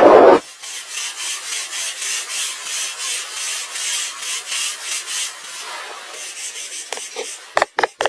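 Wood being rubbed or abraded by hand in steady, even strokes, about two to three a second. A few short, sharp wooden knocks come near the end.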